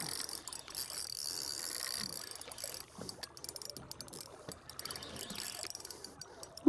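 Fishing reel being cranked as a hooked fish is reeled in on a bent rod: a quiet, fast mechanical ticking whir, steady for about the first three seconds and returning briefly near the end.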